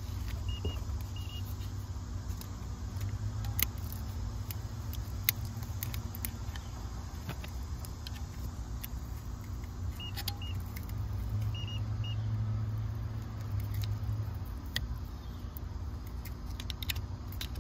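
A steady low hum that swells and fades, with scattered small clicks and scrapes as a screwdriver tip probes the charred terminals of a Copeland scroll compressor.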